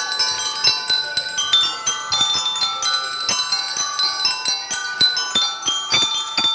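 Drum and lyre corps playing: metal bell-lyre bars struck with mallets ring out a quick melody over frequent snare and bass drum strokes.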